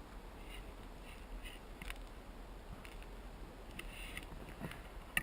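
Quiet stretch with a few faint, scattered rustles and soft knocks, and no heavy strikes.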